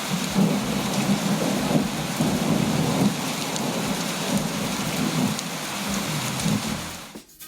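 Steady rushing noise that cuts off abruptly near the end.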